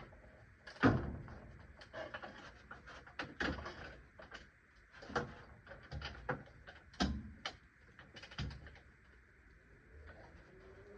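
Irregular light clicks and knocks, a dozen or so spread over several seconds, as tools and car parts are handled.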